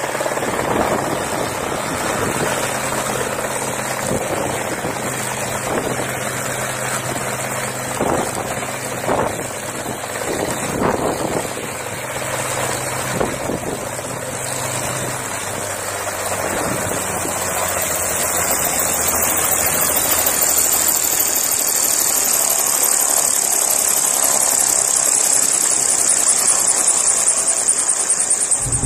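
Engine of a homemade single-seat helicopter idling steadily on the ground. Its note drops lower about halfway through, and a high hiss grows toward the end.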